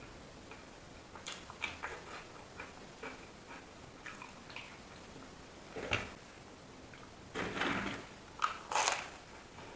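Close-up eating sounds: a person chewing with soft mouth clicks and smacks, and a longer, louder wet sound about three quarters of the way through.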